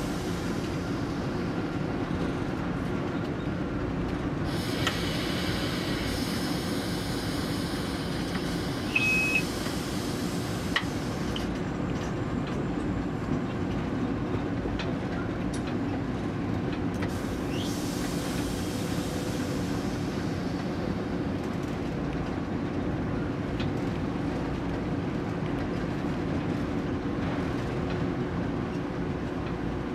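Steady rumble inside a diesel-electric locomotive's cab while the train is underway: engine and wheels on rail, with a faint hum underneath. Two stretches of higher hiss come and go, and a short high beep sounds about nine seconds in.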